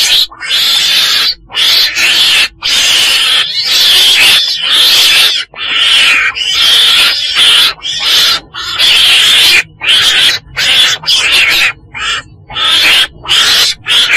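Weasel (Mustela) calling: loud, harsh, hissy calls in quick runs of bursts, each from a fraction of a second to over a second long, with short breaks between.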